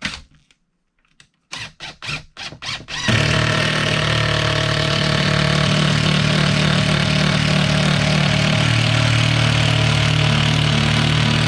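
Power drill driving a screw into the framing: a few short trigger bursts, then about eight seconds of steady running that stops abruptly.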